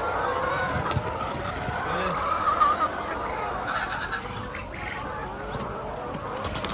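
A flock of chickens clucking and calling together in a dense, overlapping chatter.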